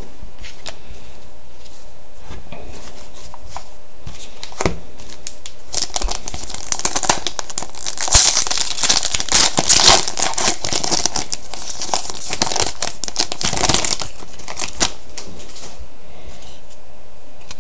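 A trading-card pack's wrapper being torn open and crinkled, in dense crackly rustling from about six seconds in until about fourteen seconds, after a few light clicks of handling.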